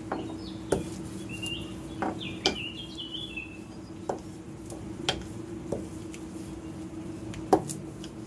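Scattered sharp clicks and pops, about seven of them with the loudest near the end, as thinly spread maida paratha dough is pressed and worked with a wooden rod on the slab: air bubbles trapped in the dough bursting. A steady low hum runs underneath, and a few short high chirps come in the first few seconds.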